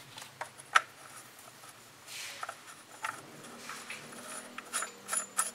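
Scattered clicks and taps of a brass hose-barb fitting being handled and screwed into the port of a plastic DC oil transfer pump, the sharpest click about three-quarters of a second in and a quick run of clicks near the end, with a brief rustle about two seconds in.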